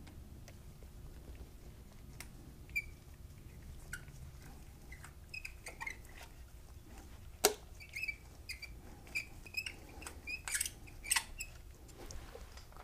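Small metal clicks and faint squeaks as a 3 mm Allen key and a bolt with its spacer are worked into a chrome motorcycle frame cover by hand. They come scattered and irregular, with one sharper click about seven seconds in and a quick run of ticks near the end.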